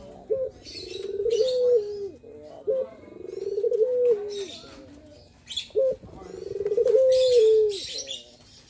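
Male ringneck dove (puter) cooing its song: three phrases about three seconds apart, each a short note followed by a long coo that rises and then steps down in pitch. High chirping runs in the background.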